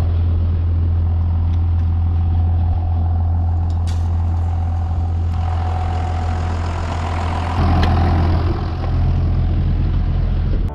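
Tractor engine running steadily with a constant whine, heard from inside the cab; it grows louder about eight seconds in.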